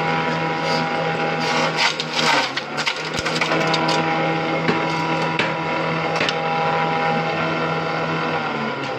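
Small grass chopper (chaff cutter) running at a steady speed with a constant hum, with irregular clattering ticks and knocks through the first several seconds. Near the end its pitch starts to drop as the machine slows down.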